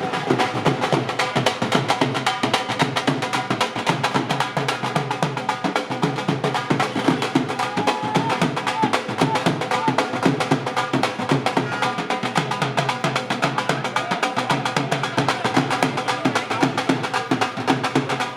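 Live street music led by fast, continuous drumming, many strokes a second without a break, with a pitched melody line sounding over the drums at times.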